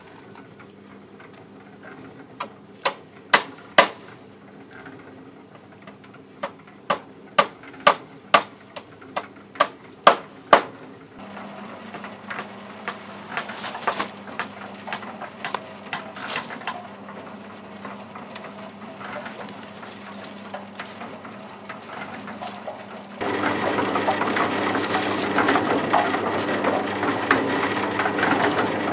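Hammer blows in two runs: about four strikes, then after a short pause about ten more, roughly two a second. From about twenty-three seconds in, a louder continuous rough, rattling noise takes over.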